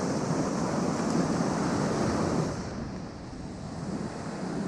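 Ocean surf washing on the beach, with wind on the microphone. The wash eases about two and a half seconds in and builds again.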